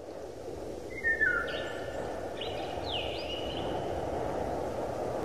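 Outdoor nature ambience: a steady rushing hiss with a few birds calling. The calls are short sliding notes, about four of them, between one and four seconds in.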